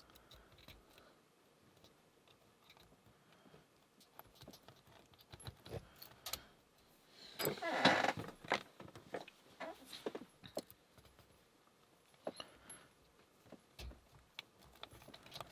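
Lock picks and tension tool working a brass pin-tumbler padlock: small metallic clicks and scrapes that grow busier partway through, with a louder jangling rattle of metal about halfway.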